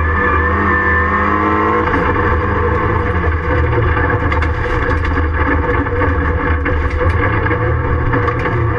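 Ford Fiesta Mk7 rallycross car's engine heard from inside the stripped, roll-caged cabin while racing. Its pitch drops slightly over the first two seconds, then the sound turns rougher, with scattered sharp clatters and knocks from about three seconds in.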